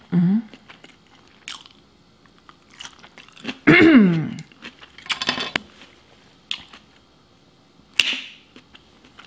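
Close-miked chewing and crunching of sushi rolls, broken by a few short hummed vocal sounds. About eight seconds in comes a sharp click, the flip cap of a sauce bottle snapping open.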